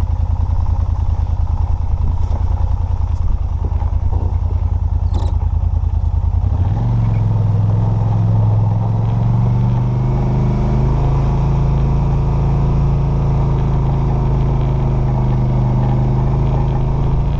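ATV engine idling with a low, rapid pulsing. About six and a half seconds in it rises to a steady, higher drone as the machine pulls away and keeps driving.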